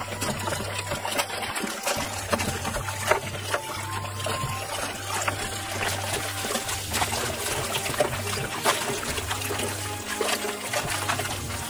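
Tap water running into a plastic bowl of leafy greens while hands swish and rub the leaves in the water, with repeated small splashes.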